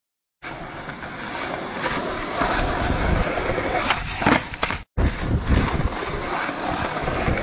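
Skateboard wheels rolling over a hard tennis-court surface, with sharp clacks around four seconds in as the board pops and lands a trick. The sound cuts out for an instant just before five seconds, then the rolling goes on.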